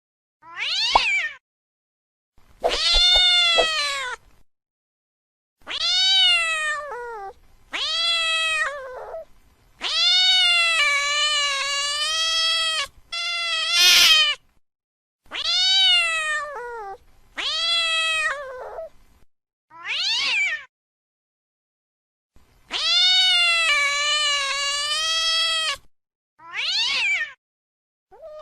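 Angry domestic cat yowling: about eleven drawn-out meows, each rising and then falling in pitch, some over two seconds long, separated by silent gaps.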